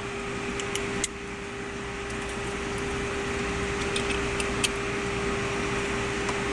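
Steady whirring background hum with one constant tone, like a running fan, and a few faint light clicks about one second in and again around four seconds in.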